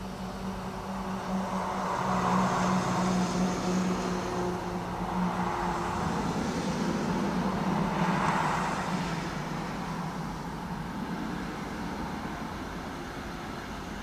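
Road traffic: cars passing one after another, each swelling up and fading away, about three in quick succession, over a steady low hum.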